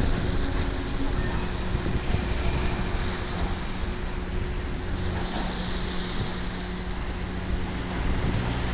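Wind buffeting the microphone and waves washing onto rocks, over a steady low engine hum.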